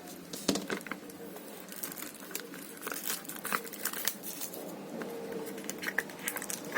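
Plastic wrap being torn and peeled off a product box, crinkling with many irregular sharp crackles.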